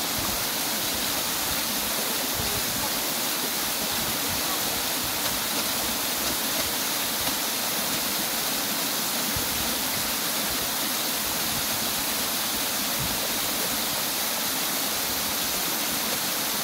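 Steady rush of running water, an even hiss that holds without a break.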